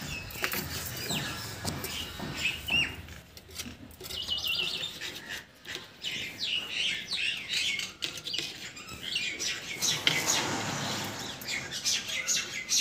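Small birds chirping over and over, mixed with light clicks and scrapes of thin aluminium wire being bent into rings by hand.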